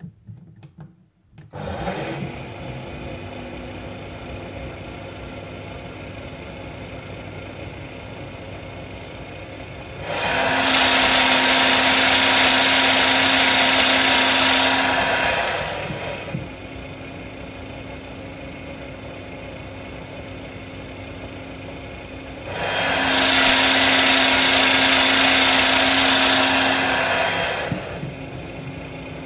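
Nutri Ninja personal blender running a smoothie, muffled inside a sound-reducing enclosure. About ten seconds in the enclosure is lifted off and it becomes much louder with a steady whine, then muffled again when the enclosure is lowered; the same happens a second time, the enclosure going back on near the end.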